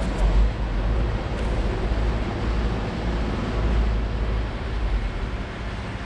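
Wind rumbling on the microphone over a steady outdoor background noise.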